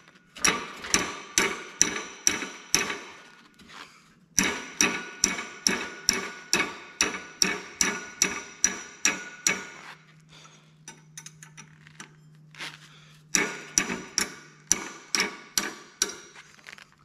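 A hammer striking a wrench again and again, about two or three blows a second, each with a short metallic ring, in three runs broken by a brief pause and then a pause of about three seconds past the middle. The blows are a makeshift impact on the 10 mm bolt holding a go-kart engine's torque converter (driver clutch), with the engine held on its compression stroke so the crank won't turn.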